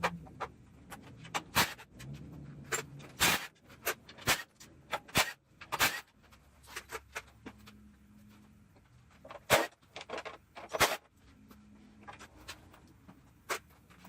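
Irregular sharp knocks and clatters, a dozen or more, spaced unevenly.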